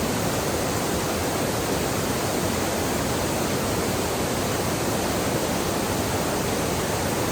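Steady rush of a waterfall on a creek: an even, unbroken noise of falling water.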